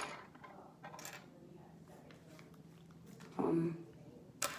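A few sharp clicks and light rattling of small plastic Lego pieces being handled and fitted together: one click at the start, one about a second in and one near the end.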